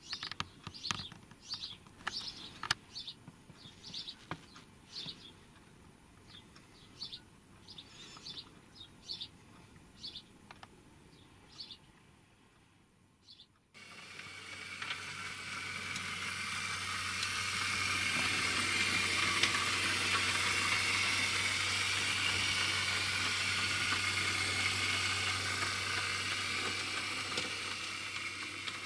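Birds chirping, short high calls about once a second with a few clicks, then a sudden cut to a model train running on the layout: a steady rushing rattle with a low motor hum that swells over a few seconds, holds, and tapers off near the end.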